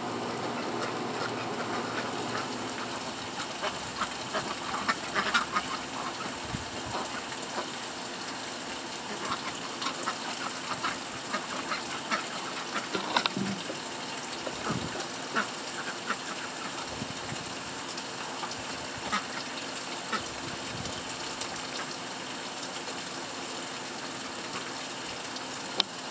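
Domestic ducks quacking in short, scattered calls, with splashing as they bathe in a backyard pond.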